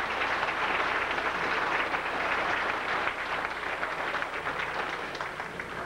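A banquet crowd giving a standing ovation, many people clapping at once; the applause thins out near the end.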